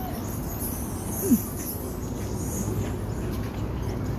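Outdoor park ambience: a steady low background rumble with high-pitched insect chirring over it. About a second in there is one short, loud call that slides down in pitch.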